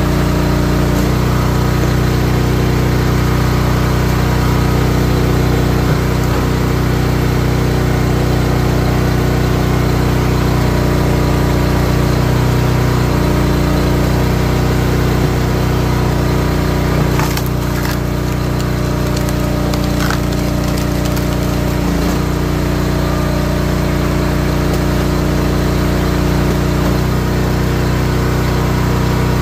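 Small gas engine of a Wolfe Ridge 28-ton high-output log splitter running steadily, its note shifting a few times. A little past halfway comes a short run of cracking and splintering as a firewood round is split.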